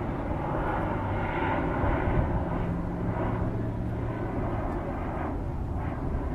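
Lockheed T-33 jet trainer's single turbojet engine, a steady rushing jet roar as it flies by, with the higher part of the sound thinning out near the end.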